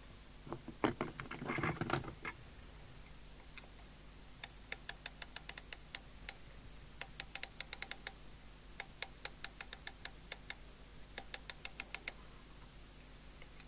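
Rotary channel-selector switch of a Sapphire X4000 CB radio being turned by hand, clicking through its detents in quick runs of faint clicks with short pauses between. A few handling knocks come first.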